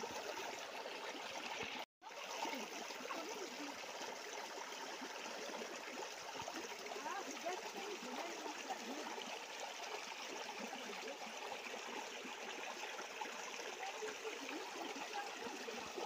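Shallow stream running over rocks, a steady rush of water that cuts out for an instant about two seconds in.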